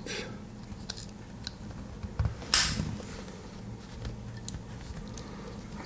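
Swiss Army knife being handled as a tool is pried out: a few faint metallic clicks and one brief scrape about two and a half seconds in.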